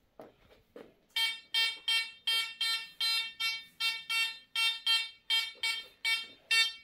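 Home-built metal detector on an Amiral XP-4 discrimination board beeping about three times a second, a short pitched tone on each pass of a steel test piece over its search coil: the detector signalling the metal target. Two soft handling knocks come in the first second before the beeping starts.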